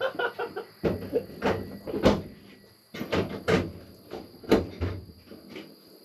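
People laughing in short, irregular bursts.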